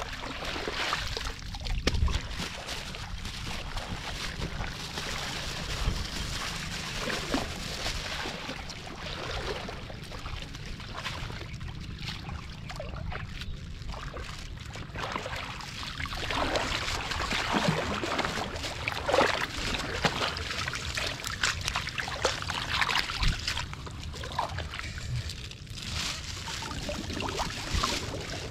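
Shallow muddy paddy water splashing and sloshing, again and again, as a woven bamboo basket is scooped and dragged through it, with water trickling off the basket as it is lifted.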